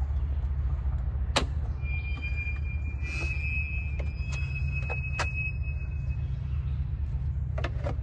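A thin, high, steady squeal from the woods, held for about four seconds, over a steady low rumble and a few sharp clicks. It is scream-like enough to be jokingly blamed on cryptids.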